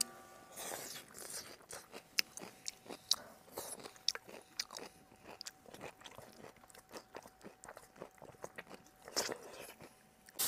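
A person eating rice with chopsticks from a bowl: close chewing and crunching, with many small clicks of the chopsticks against the bowl.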